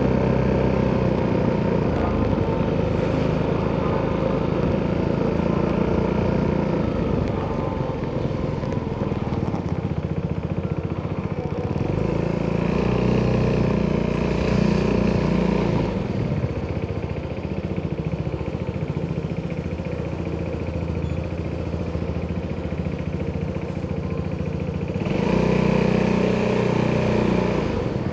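Italjet Dragster 200's single-cylinder four-stroke DOHC engine running through an Akrapovic exhaust while being ridden. Its note rises and falls with the throttle, with louder pulls about halfway through and again near the end.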